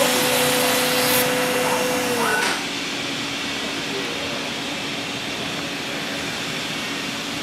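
CNC router spindle whining steadily, then falling in pitch and stopping about two seconds in as it winds down. A steady rush of air and machine hum carries on underneath.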